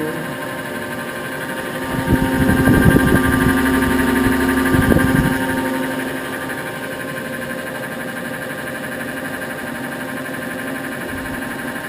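1945 Blanchard 18-36 rotary surface grinder running with no workpiece on the chuck: a steady machine hum with several steady tones from the spindle and turning magnetic chuck. About two seconds in, a louder mechanical whir with a few knocks comes in for about four seconds, then settles back to the steady hum.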